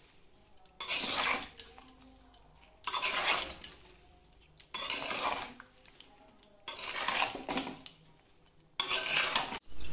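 Metal spatula scraping a non-stick wok as it turns chunks of jackfruit and mango through oil and spices, mixing the pickle. There are five stirring strokes about two seconds apart.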